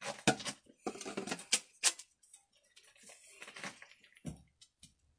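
Irregular clicks, knocks and scraping of white PVC drain pipe and fittings being handled and fitted by hand, busiest in the first couple of seconds, then sparser.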